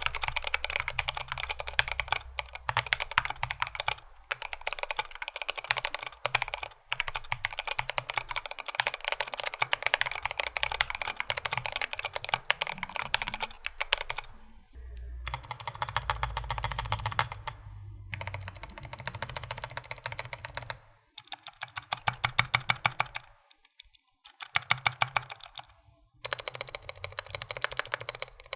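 Typing on a GMMK Pro mechanical keyboard with stock Everglide Beeswax tactile switches in an aluminum plate and Domikey keycaps. The typing is fast and continuous at first, then breaks into several shorter bursts of keystrokes separated by brief pauses.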